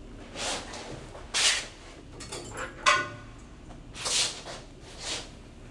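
A person sniffing in short bursts, four times, with light clicks and a ringing metal clink about three seconds in.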